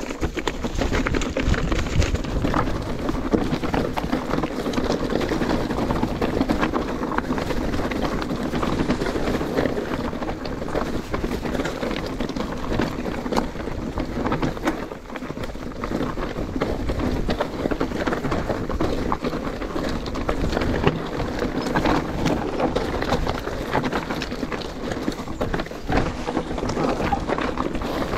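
Mountain bike rolling over a rough, rocky trail: a constant crunch of tyres on stones and gravel, with the bike rattling and many small knocks.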